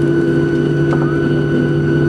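Boeing 737-700's CFM56-7B jet engines at taxi power, heard inside the cabin beside the wing: a steady hum with several constant tones.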